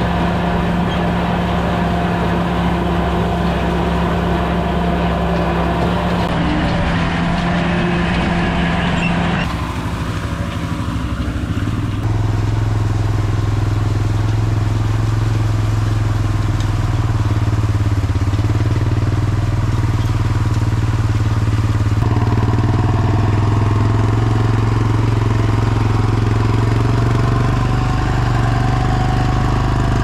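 A John Deere tractor's diesel engine running steadily under load while pulling a rotary hay tedder. The engine note shifts lower about a third of the way in and then holds steady.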